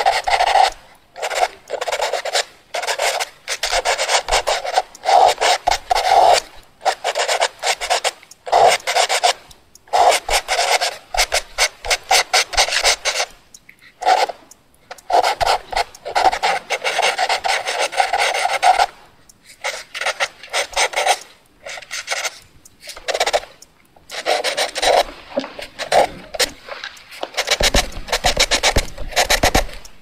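Pencil scratching quickly across paper in fast drawing strokes. The strokes come in rapid runs of one to a few seconds, broken by short pauses.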